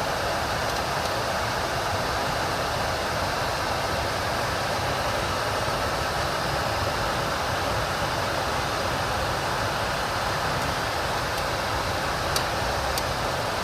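Kenworth T800's cab HVAC blower fan running steadily, blowing air, with the truck's idling engine underneath. There are a couple of faint clicks near the end.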